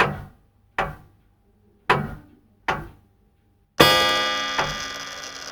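Sharp knocking hits in pairs about a second apart, repeating about every two seconds. Near the end comes one louder hit that rings on for about a second and a half.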